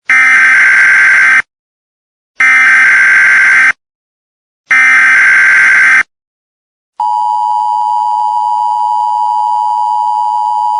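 Emergency Alert System opening: three loud digital data bursts of harsh, raspy tone, each about a second and a half long with a silent gap between. About seven seconds in, the steady two-tone EAS attention signal begins and holds.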